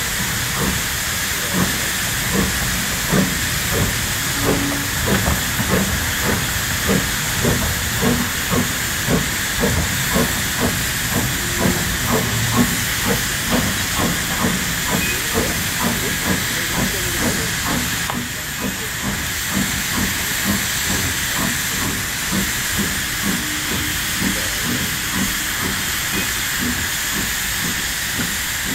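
Small 0-4-0 saddle tank steam locomotive chuffing as it hauls a train of coaches away: a regular beat of exhaust over a steady hiss. The beats grow fainter in the last third.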